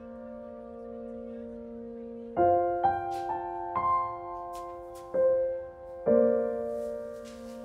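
Slow, soft piano music: sustained chords, a new chord struck every second or two.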